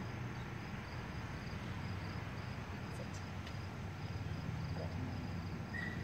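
Insects chirping in a steady, regular pulse of short high chirps, about two a second, over a low steady outdoor rumble. A single short higher note sounds near the end.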